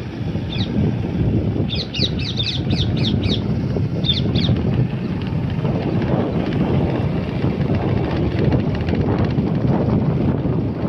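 A bird gives a rapid series of short, falling, high-pitched chirps, one about half a second in, a run of about seven between two and three and a half seconds, and two more about four seconds in, over a steady low rumble.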